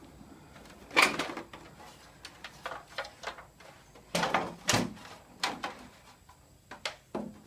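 Irregular knocks, clicks and clatter of a CRT television being taken apart by hand. The loudest knock comes about a second in, with more strong ones a few seconds later.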